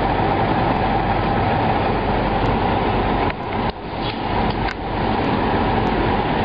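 Steady low engine rumble of idling semi trucks, with two brief dips a little past three seconds in.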